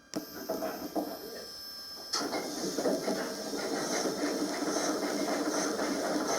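Recorded startup of an EMD 567 diesel locomotive prime mover, as in a GP7, played through a small Bluetooth speaker: light clicks and hiss, then about two seconds in the engine fires and settles into a steady run.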